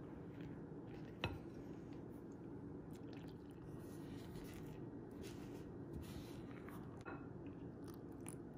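Wooden spoon stirring dry flour in a glass mixing bowl: soft, crunchy scraping strokes over a low steady hum, with one sharp knock about a second in.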